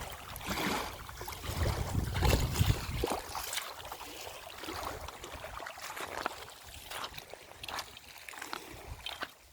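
Water splashing and trickling, with irregular small knocks and a low rumble about two seconds in.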